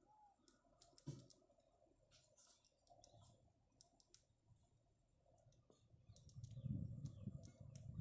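Near silence: faint scattered clicks and ticks, with one sharper click about a second in and a low rumble rising over the last two seconds.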